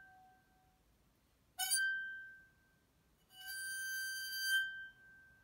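Wine glass bowed with a violin bow, giving a ringing glassy tone with clear overtones. An earlier stroke fades at the start, then a short stroke about a second and a half in rings out. A longer stroke about three seconds in carries a hiss of bow noise over the tone, holds for over a second and fades near the end.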